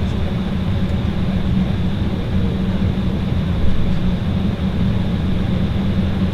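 Steady, loud cabin roar of an Embraer 190's two GE CF34-10E turbofan engines at takeoff thrust, heard from inside the passenger cabin.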